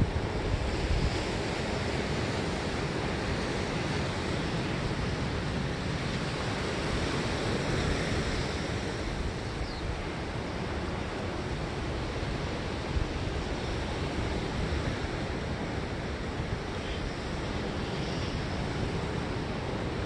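Pacific Ocean surf: a steady wash of breaking waves, with wind rumbling on the microphone.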